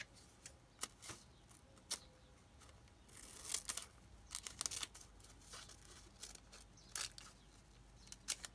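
Thin tissue paper rustling and crinkling as it is handled round a pencil, with faint scattered clicks and snips of small scissors cutting it to length.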